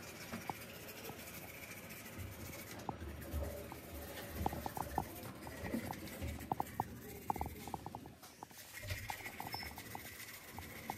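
Toothbrush scrubbing teeth: quiet, irregular scratching with many small clicks.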